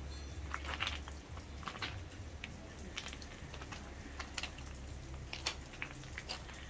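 Footsteps crunching on loose gravel, irregular short crunches about one or two a second, over a steady low wind rumble on the microphone.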